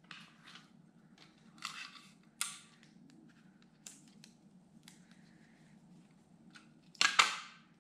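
Sticky tape pulled off a roll and pressed around a rolled-paper tube: several short rips, the longest and loudest about seven seconds in.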